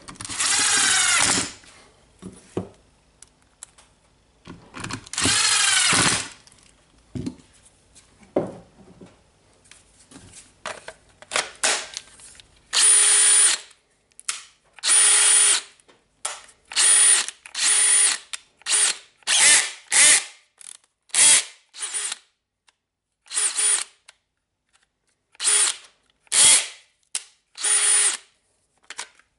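DeWalt DCD796 brushless cordless hammer drill running with no load, test-run after a repair of its speed gear assembly. It starts with two longer trigger pulls, each spinning the motor up and letting it wind down. About halfway through come many short bursts, each holding one steady pitch.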